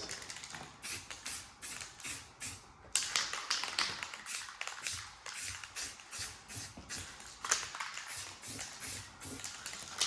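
Aerosol can of spray paint squirted in many short bursts onto a steel wheel, a light dusting coat, with a few longer hisses.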